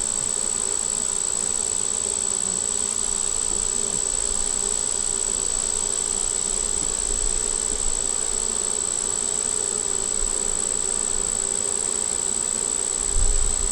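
Many honey bees buzzing steadily in the air around an opened hive. The colony is defensive after being disturbed and its queen box moved. A brief low bump comes near the end.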